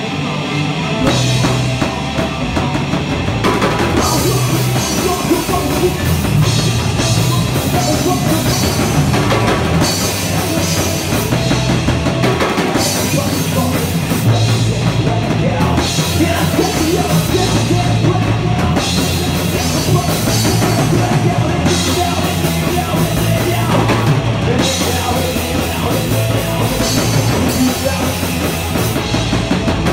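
A rock band playing live, with the drum kit prominent over the guitars.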